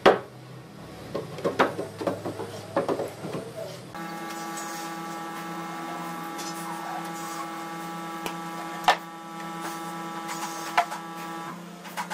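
Wood knocking and scraping as a plywood panel is handled and set into a wooden cabinet frame; then, after an abrupt change about four seconds in, a steady mechanical hum made of several even tones, with two sharp clicks.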